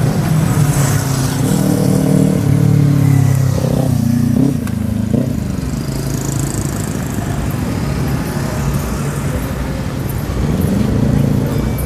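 A motor vehicle engine running, with brief rises and falls in pitch about four seconds in and again near the end.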